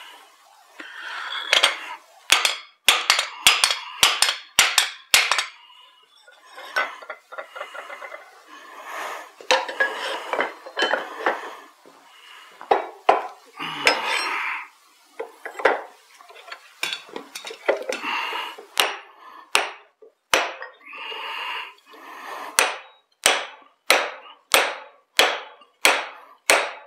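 Hand hammer striking steel in quick runs of ringing blows, about two a second in the later stretch, with duller blows between: a drift being driven through the hot eye of a forged broad axe head.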